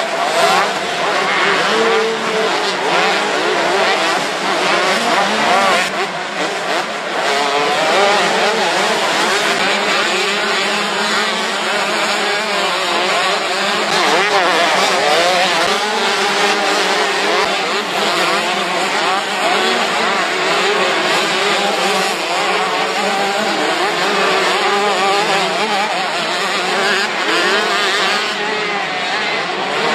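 Several motocross bikes racing, their engines revving up and down over one another without a break.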